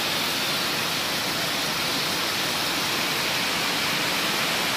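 Heavy monsoon rain pouring down, a steady even hiss.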